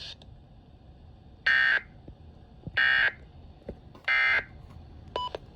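Emergency Alert System end-of-message data bursts: three short, identical bursts of harsh digital tones, evenly spaced about a second and a half apart, signalling the end of the broadcast flash flood warning.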